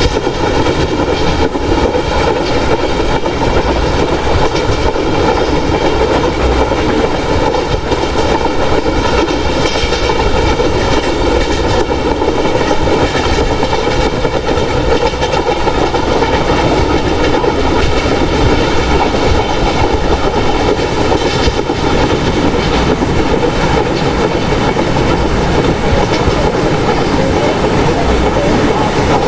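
Express passenger train running at speed: a steady loud rumble with wheels clicking over the rail joints.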